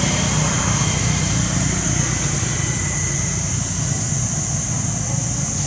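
Steady outdoor background noise: a constant low rumble with an even high-pitched hiss over it, and no distinct events.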